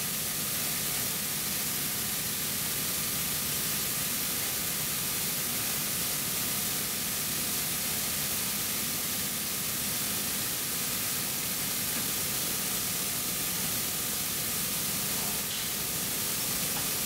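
A TRUMPF TRUMATIC L3030 CO2 laser cutting machine running while it cuts sheet metal: a steady hiss with a faint high whine that does not change.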